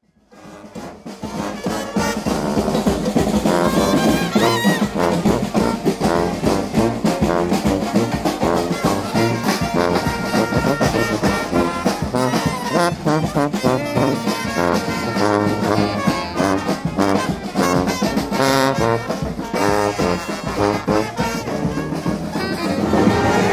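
New Orleans brass band playing: sousaphones carrying the bass line under trumpets, trombone and saxophone, with a snare drum. The music fades in over the first couple of seconds, then plays on at full strength.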